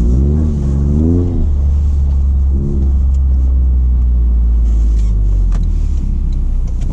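Toyota GR Corolla's turbocharged three-cylinder engine with an aftermarket Fi exhaust, revving up and down several times, blipping once more about three seconds in, then holding a steady low drone.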